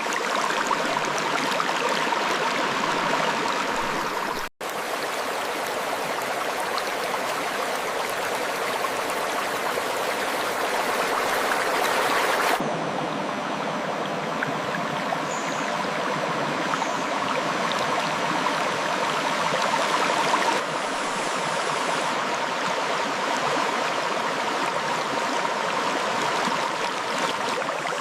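River water flowing steadily over rocks, a continuous rush and babble, cut off for an instant about four and a half seconds in.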